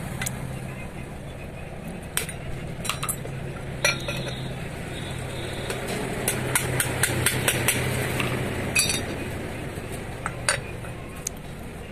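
Irregular metal clinks and knocks as the steel parts of a dismantled starter motor and hand tools are handled and knocked together while its bushes are being changed, over a steady low hum.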